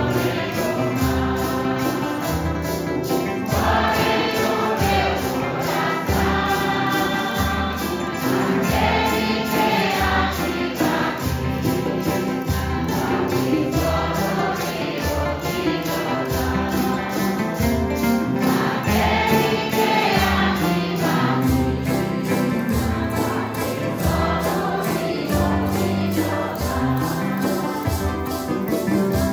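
A mixed choir sings a Santo Daime hymn in unison, backed by acoustic guitar. Metal maracas shaken in a steady beat keep time throughout.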